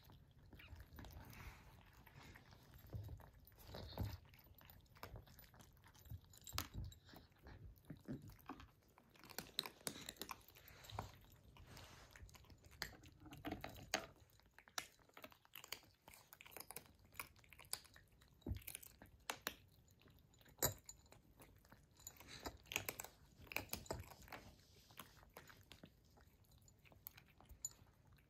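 Kittens eating dry kibble: many small, irregular crunches and clicks of chewing.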